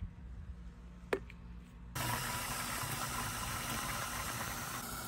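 A stream of water pouring through a funnel into the empty plastic tank of a one-gallon pump sprayer, filling it. The steady rushing starts suddenly about two seconds in, after a single click.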